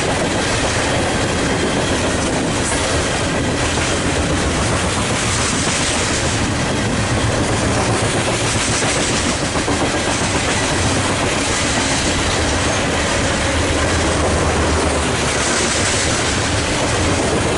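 Loaded coal train's open-top cars rolling past close by: a steady, loud run of steel wheels on rail, clattering over the rail joints.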